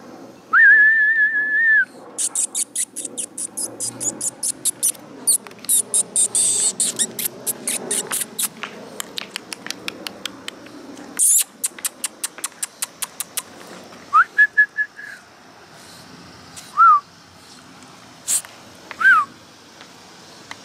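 A person whistling and making quick runs of mouth clicks to call a puppy: a held, slightly wavering whistle near the start, then bursts of sharp clicks several a second, and later more short whistles, the last two falling in pitch.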